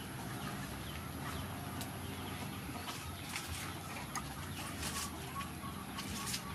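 Chickens clucking, with sugar cane leaves rustling now and then as someone pushes through the stalks.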